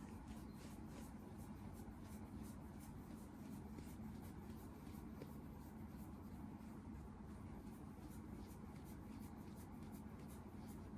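Quiet room tone: a steady low hum with faint, irregular light scratching or ticking.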